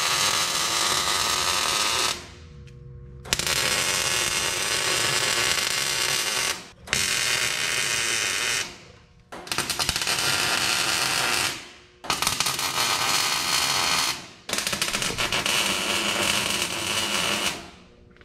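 Wire-feed (MIG) welder arc crackling and hissing in six runs of about two to three seconds each, with short pauses between them: stitch welds laid on a steel frame.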